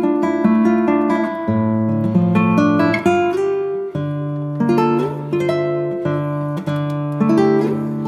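Background music on acoustic guitar: quick plucked notes over held bass notes that change every second or two.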